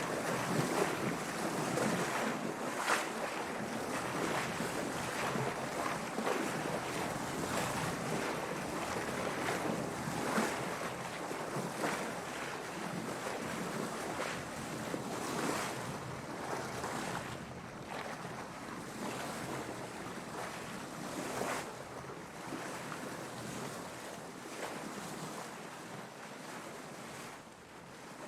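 Water splashing and sloshing against a sailboat's hull in waves, with wind. Irregular splashes come every few seconds over a steady wash, growing gradually quieter toward the end.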